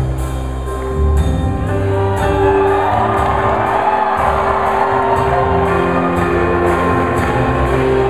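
Live band playing a song with a strong bass line and a steady drum beat of about two a second, with voices singing over it.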